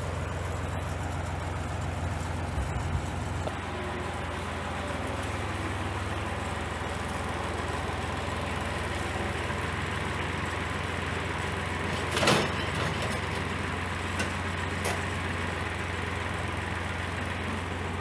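International Harvester tractor engine running at a steady speed, hooked to a PTO wood chipper. There is a brief clatter about twelve seconds in.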